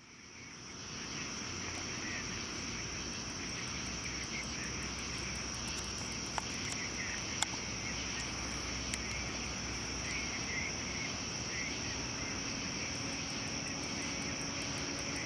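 Night chorus of crickets and other insects: a steady high-pitched drone with a fast, evenly pulsing trill above it, over a low steady rumble. It fades in over the first second, and a few faint clicks come through near the middle.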